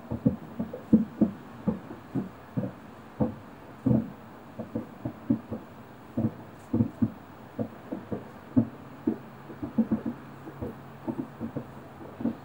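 Distant fireworks shells bursting in a rapid, irregular series of low booms, about three a second.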